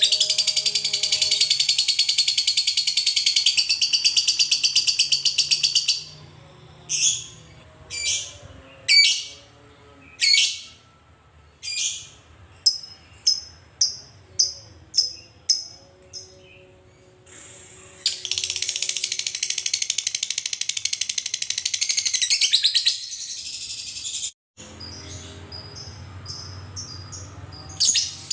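Lovebird chattering in a long, fast, high rattling trill (the 'ngekek'). It breaks off into a run of short, sharp single chirps, then starts a second long chatter about two-thirds of the way in.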